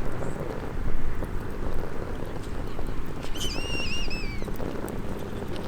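Small campfire crackling, with wind buffeting the microphone. About three seconds in, a bird gives one wavering whistled call that slides down at the end.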